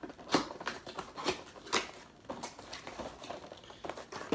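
Irregular light clicks and rustles of a small cardboard box and its packaging being handled and opened.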